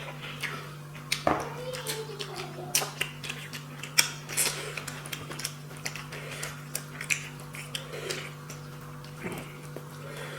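Eating sounds: irregular sharp mouth clicks, smacks and chewing as tilapia fish curry and rice are eaten by hand, over a steady low hum.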